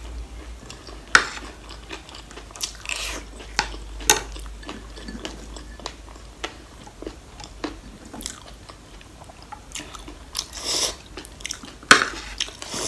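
Close-miked chewing and crunching of spicy noodle chatpate, with sharp clicks now and then as a spoon hits the ceramic plate, the loudest near the end.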